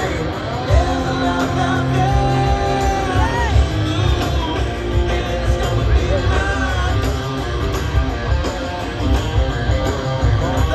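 Live rock band playing with electric guitars, drums and bass, and a singer holding a long note that slides upward at its end, about three seconds in.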